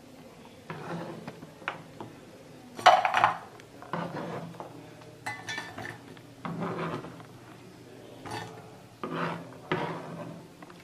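Chopped chocolate being handled: a kitchen knife scraping and tapping on a plastic cutting board, and chocolate chunks clattering into a small metal saucepan. Irregular knocks and scrapes, the loudest about three seconds in.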